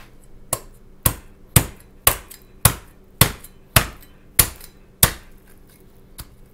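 A heavy Chinese-style cleaver chopping through a red snapper's head onto a plastic cutting mat: nine sharp strikes about two a second, stopping about five seconds in.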